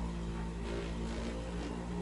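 Heavy-duty electric massager running with a steady motor hum, used to loosen the back muscles.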